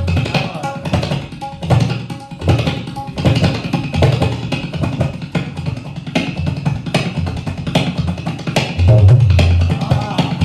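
Tabla played in a quick, steady rhythm imitating a train's carriage wheels clattering over the rail joints, with sharp strokes on the treble drum over recurring deep bass strokes on the bayan.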